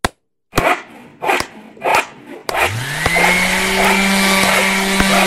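A few sharp knocks, then an electric power tool's motor spins up with a rising whine about two and a half seconds in and runs steadily.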